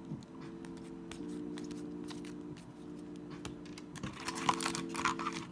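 Hockey trading cards being handled and flipped through by hand: irregular light clicking taps of card stock, with a denser rustle of cards about four seconds in. A faint steady hum of several low tones sits underneath.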